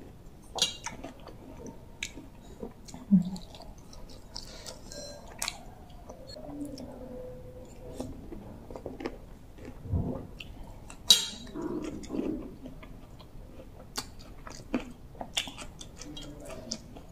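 A person chewing bamboo shoots and sipping soup broth from a metal spoon, close to the microphone. Scattered sharp clicks run through it, the loudest about eleven seconds in.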